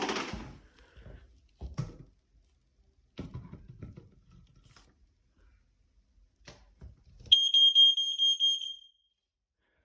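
Smoke alarm being tested: a few faint knocks, then about seven seconds in its sounder gives one loud, high-pitched steady tone that lasts about a second and a half and cuts off.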